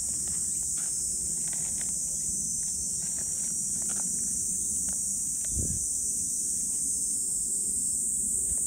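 A steady high-pitched insect chorus drones without a break, with a few faint soft ticks and one dull low bump about five and a half seconds in.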